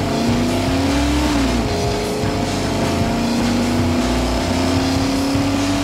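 Vehicle engine sound: a steady humming drone that dips in pitch about a second and a half in, then holds level.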